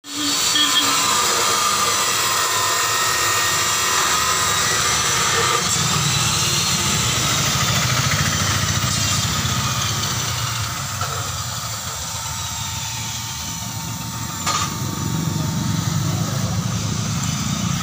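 Steady engine-like mechanical running noise, with a faint high tone that rises and then falls a few seconds in, and a short knock near the end.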